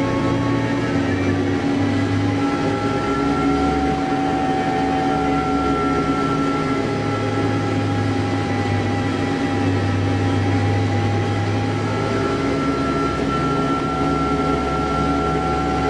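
New Holland LB 115.B backhoe loader's diesel engine and drivetrain running steadily at road speed, heard from the cab: a continuous drone with a few steady high whining tones over it.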